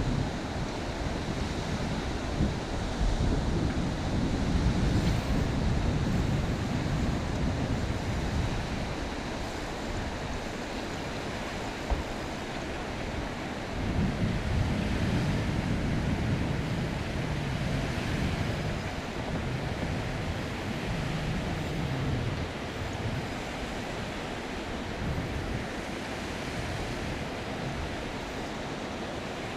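Wind gusting on the microphone over a steady rush of river water, stronger in the first half. A single short knock about twelve seconds in.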